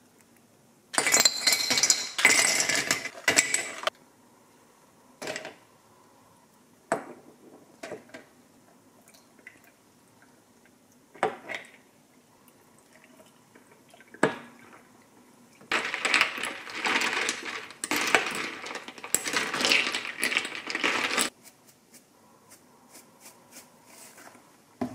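Ice cubes clattering into a glass jug and ringing against the glass, then a few single sharp clinks of a spoon on the glass as citrus preserve is spooned in. Later comes about five seconds of liquid poured into the jug over the ice.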